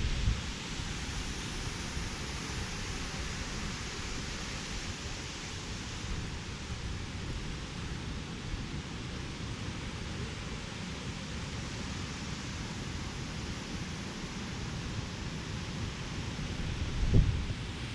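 Waterfall rushing steadily, an even hiss with no break. There is a brief low thump near the end.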